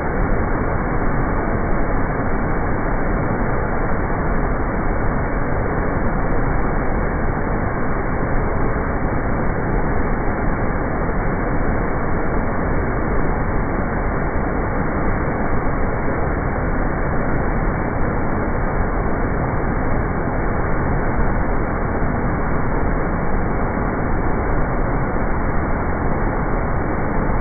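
Waterfall pouring, heard slowed down: a steady, dull rushing rumble with no high end, unchanging throughout.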